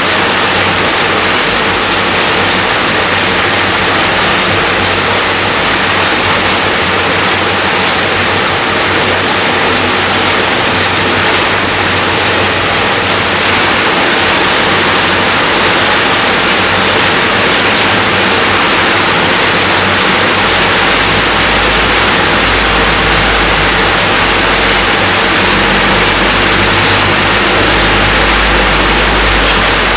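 Steady, dense rainfall hiss. A low rumble joins in about two-thirds of the way through.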